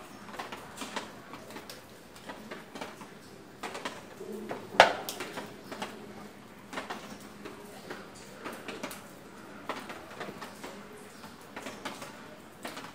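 Scattered light clicks and knocks in a room, with one sharp, much louder knock about five seconds in.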